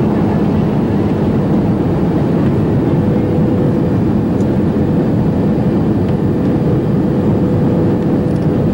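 Airliner cabin noise heard from a window seat: a loud, steady rush of engines and airflow during the approach to land. A thin steady hum joins about three seconds in.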